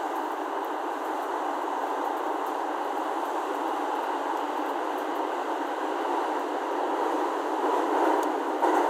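Steady running noise of a JR East E231 series electric train at speed, heard from inside the car. It grows a little louder toward the end, with one sharp knock just before it ends.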